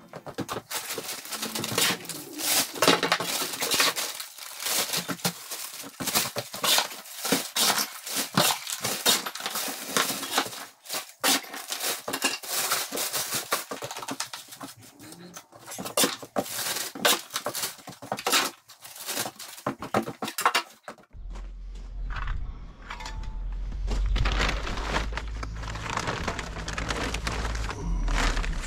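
Dense scraping, knocking and crunching of old mortar and stone rubble being raked out and cleared. About 21 seconds in, this gives way to plastic bags crinkling over a low rumble.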